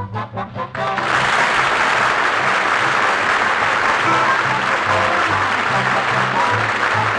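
Studio audience applause over the broadcast's closing theme music. It swells in about a second in, after a run of quick, short notes.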